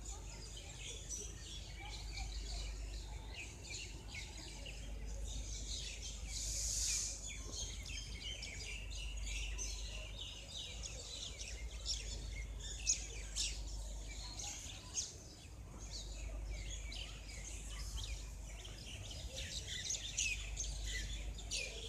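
Many small birds chirping and calling together in morning birdsong, short high twitters scattered all through, over a faint steady low background hum.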